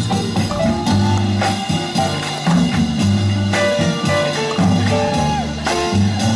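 Music with a drum kit and a bass line, keeping a steady beat.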